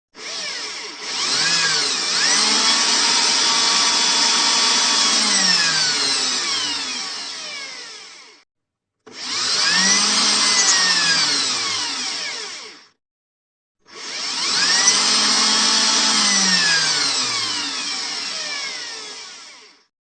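Electric drill motor run three times: each time it spins up with a rising whine, holds speed for a few seconds, then winds down with a falling whine, with short silent gaps between runs.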